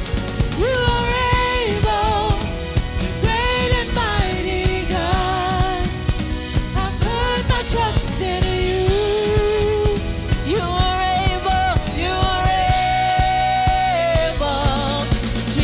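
Live gospel praise-and-worship music: a lead singer and worship team singing over a band with drum kit, the voices holding long notes with vibrato.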